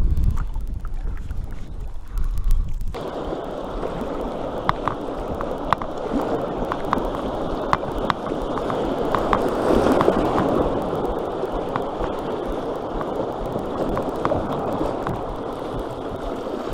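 Wind buffeting the microphone, then, about three seconds in, the steady rush of river rapids around a canoe with many small splashes, loudest about ten seconds in.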